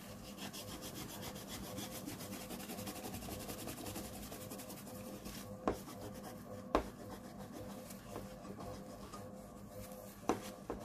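Tissue paper rubbing and scrubbing hardened old thermal paste off laptop cooling parts, a steady wiping sound, with three sharp clicks in the second half.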